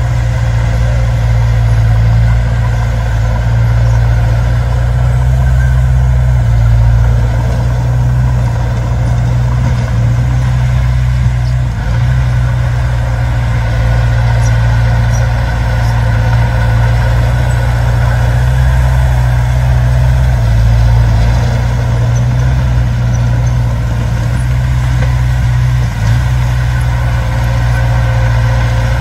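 Heavy diesel engine running steadily at a low, even pitch, the note shifting slightly now and then.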